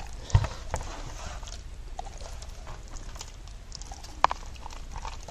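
Hands squishing and rubbing thick tandoori masala paste into a whole raw chicken on a metal tray: soft wet squelches and scattered light clicks, with a low thump about half a second in and a sharper click a little after four seconds.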